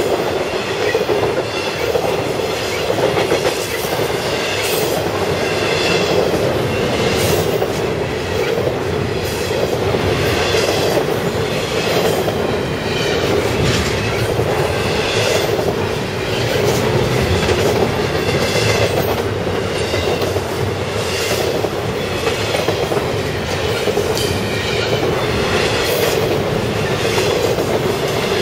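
CSX intermodal freight train's container well cars rolling past at a grade crossing: a steady rumble of steel wheels on rail, with a rhythmic clack as each set of wheels passes, about every second and a half.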